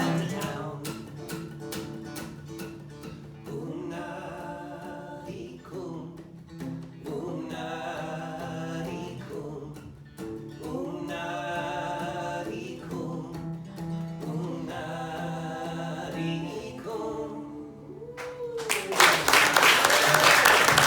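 Acoustic guitar with long, wordless sung notes in several drawn-out phrases, closing a folk song. Near the end the music stops and audience applause breaks out, louder than the music.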